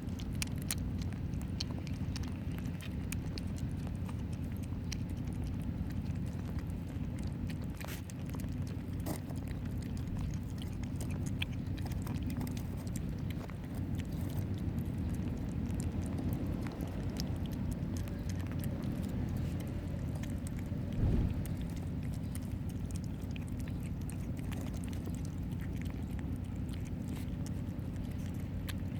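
Young kittens eating soft food: small wet chewing and smacking clicks, scattered and irregular, over a steady low background rumble, with one louder knock near the end.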